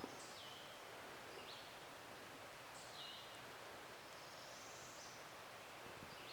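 Quiet woodland background hiss with a few faint, distant bird calls: short high chirps that drop in pitch, twice, and a thin high whistle near the end.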